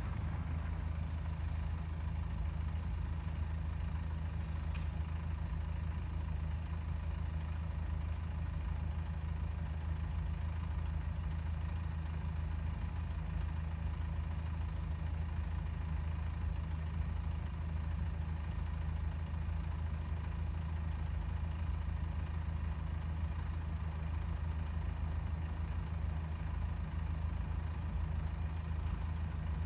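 Car engine idling, a steady low hum that does not change.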